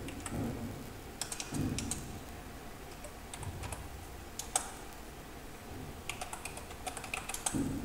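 Computer keyboard typing in several short runs of keystrokes with pauses between them, as a terminal command and then a password are entered.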